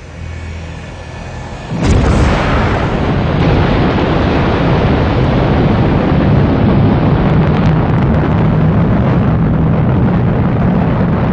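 Space Shuttle launch: a rising rush of rocket exhaust as the main engines fire on the pad, then about two seconds in a sudden, much louder deep rocket rumble that holds steady through liftoff.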